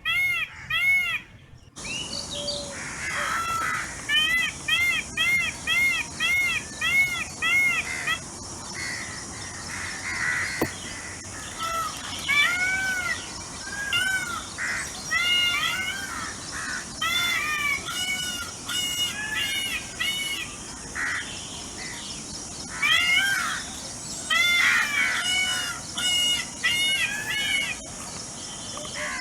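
Peacocks calling: runs of loud, repeated arching cries, about two a second, with several birds overlapping later on, over a steady high hiss.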